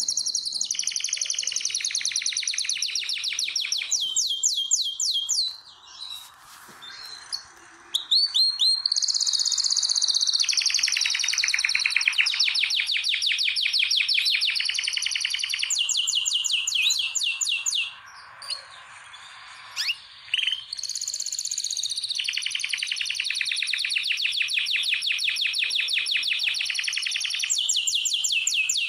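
Male canary singing its breeding song: long phrases of fast, rolling trills, one trill running straight into the next, with two short breaks of a couple of seconds in which it gives only a few single notes.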